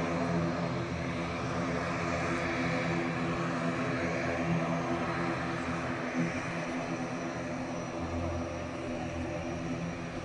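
Airplane's engines running with a steady drone made of several held pitches.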